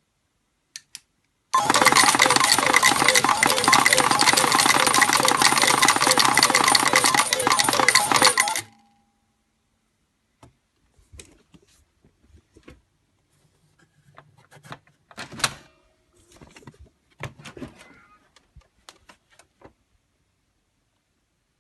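Hanabi pachislot machine paying out tokens: a dense, fast clatter of metal tokens pouring into the tray for about seven seconds, stopping suddenly. Scattered clinks of tokens follow.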